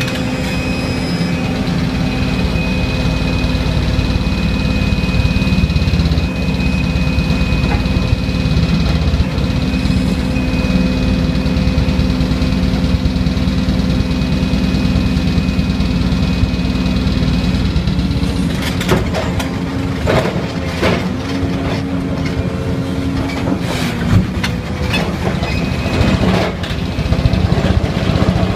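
Excavator-mounted hydraulic vibro ripper vibrating against rock: a loud, steady, rapid hammering hum over the excavator's engine, with several sharp cracks in the second half as the rock breaks.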